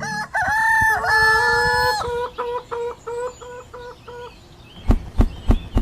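A rooster crowing with one long drawn-out call, followed by a quick run of short clucks. A few sharp knocks come near the end.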